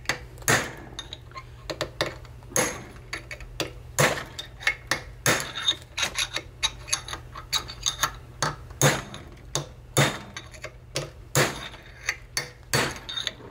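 Hammer blows on a steel drift punch, driving a pinion bearing race out of a Ford tractor's pinion housing held in a vise. Sharp metallic strikes come in an uneven run of about two or three a second, some harder than others, with the metal ringing after them.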